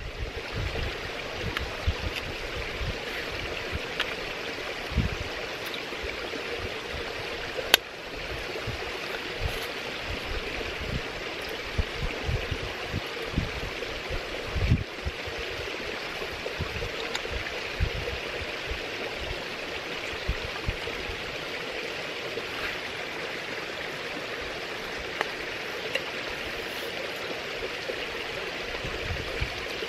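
Steady rushing of running water from a stream, with low gusts of wind buffeting the microphone. A few faint clicks come from handling a small titanium stove as it is unfolded and screwed onto a gas canister, the sharpest about eight seconds in.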